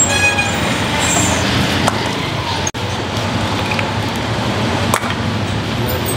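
Steady street background noise, traffic and distant voices, with a brief dropout a little under three seconds in.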